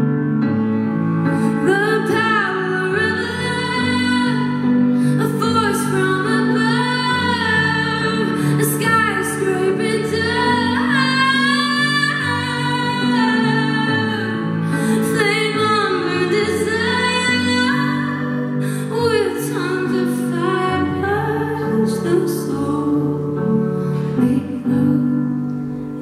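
A woman singing a slow song live while accompanying herself on piano chords from a Nord Electro stage keyboard, the chords held long under the vocal line.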